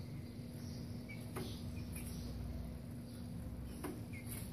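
Caged birds giving a few faint, short high chirps, with two light knocks as birds hop onto the cage perches, the second as another bird lands beside the young thrush. A steady low hum runs underneath.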